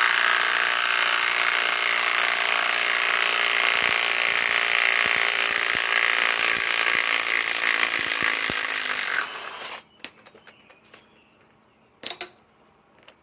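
Kobalt cordless right-angle impact wrench hammering without a break for about ten seconds on a big lug nut, then stopping. A few light metallic clinks follow, and a sharp metal clank near the end.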